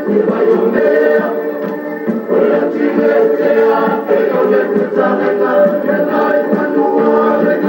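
A large group of Samoan performers singing together in chorus, many voices in phrases with short breaks between them.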